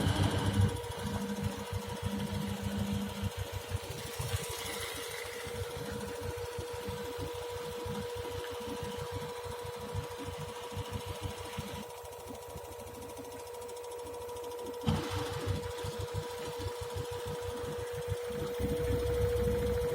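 LG FH2G6TD4 front-loading washing machine running with a steady hum and a rapid, irregular knocking from the area of the emergency drain at the bottom front.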